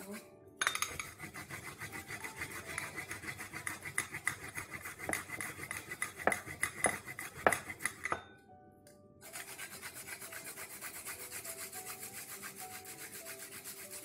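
Small handheld metal grater rasping fresh ginger in rapid, even back-and-forth strokes, with a few sharper clicks around the sixth and seventh seconds. The strokes stop for about a second some eight seconds in, then start again.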